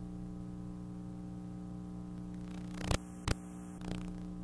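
Steady low electrical hum with a stack of overtones, broken by two short clicks about three seconds in.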